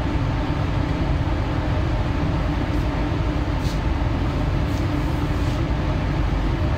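Paint spray booth ventilation running: a steady rush of air with a constant low hum.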